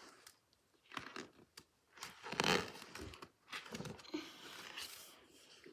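Soft, irregular rustling and clicking handling noises, a string of short crackles, loudest about two and a half seconds in.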